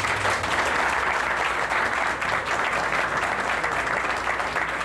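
A crowd of people applauding steadily, many hands clapping together.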